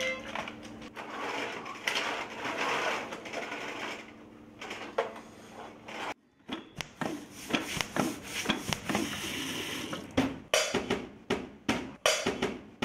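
First, a few seconds of steady rattling and whirring from plastic toys. After a short gap, children strike household objects with their hands, a metal pot lid and a plastic box lid among them. The knocks come in a quick, uneven run of taps that grows busier near the end.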